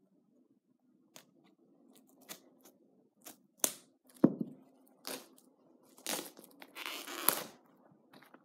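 Packaging being torn open and handled: a run of short rips and rustles, a knock about four seconds in, then a longer stretch of tearing near the end.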